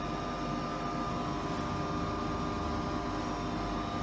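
Steady background hum with a few constant tones over an even hiss: the room's running noise, with no distinct event.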